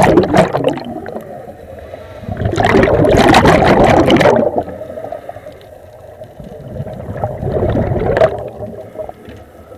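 Scuba regulator exhaust bubbles heard underwater, the diver's exhaled breath bubbling past in loud bursts. One burst fades out at the start, a long one starts about two and a half seconds in, and a shorter one comes near eight seconds, in the rhythm of slow breathing.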